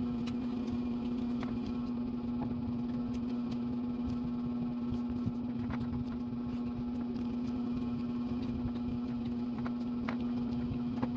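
A steady electrical hum with a low tone, with faint scattered clicks and taps from eating food by hand.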